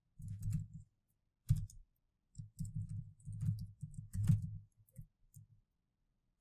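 Typing on a laptop keyboard: quick runs of keystrokes in several short bursts with brief pauses between, the longest run in the middle.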